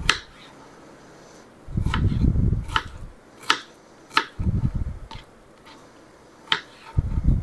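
Kitchen knife slicing strawberries on a cutting board: a sharp tap each time the blade meets the board, about every second and unevenly spaced, with a few short low thuds in between.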